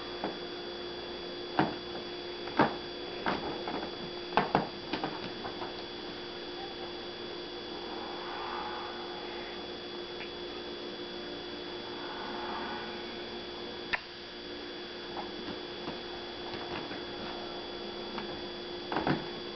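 A cat pouncing and scrambling on a fabric couch: scattered sharp thumps and scratches from its paws and claws, most of them in the first five seconds, one about 14 seconds in and a couple near the end, over a steady electrical hum.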